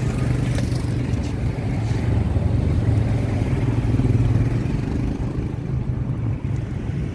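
A steady low engine rumble that grows a little louder in the middle, with a few faint clicks near the start.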